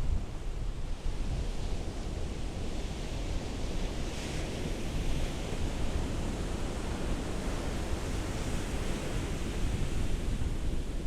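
Ocean surf: a steady wash of waves with a deep low rumble, and the hiss of surging water swelling about four seconds in and again near eight seconds.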